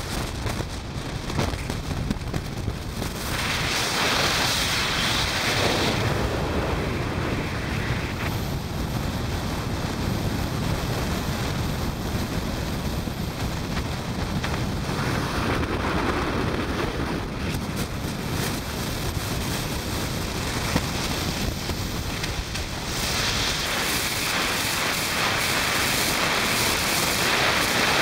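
Wind rushing over the microphone of a camera on a moving motorcycle, a steady roar of wind and road noise that swells and eases several times.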